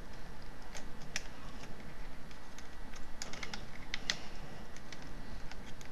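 Scattered light plastic clicks and taps as a pen pries at the snap-in plastic cover strip above a Lenovo S12 laptop's keyboard, working its clips loose. The clicks come in a quick cluster a little past the middle.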